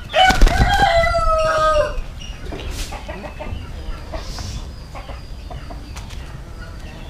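A rooster crows once: a single long crow of nearly two seconds, sagging a little in pitch at the end. After it come only faint clicks and rustles.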